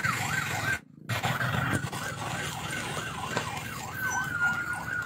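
An electronic emergency siren yelping, its pitch sweeping up and down about three times a second, with a short break about a second in and a held steady tone near the end, over a low rumbling noise.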